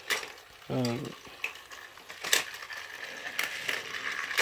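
Battery-powered toy Thomas engine running on plastic track into the volcano set, a steady small-motor whir with a few sharp plastic clicks.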